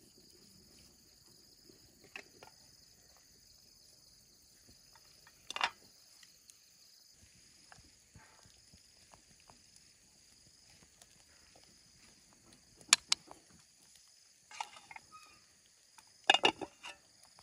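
Steady high chirring of insects, with a few sharp knocks and clicks: one about a third of the way in, a louder one past the middle, and a quick cluster near the end.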